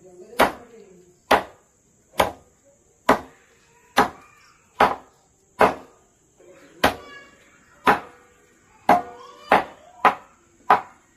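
A large knife chopping raw chicken into pieces on a wooden board: a steady run of sharp chops, about one a second.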